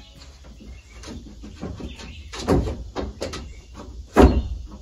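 Irregular knocks and thuds on wooden roof boards and rafters as the roof of a log cabin is worked on, with a heavier thud about halfway through and the loudest one near the end.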